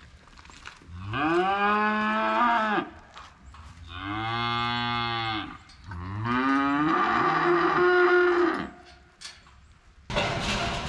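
Calves bawling three times in long calls, each rising and then falling in pitch, as they are penned to be loaded for hauling. Near the end the sound cuts suddenly to a steady noise.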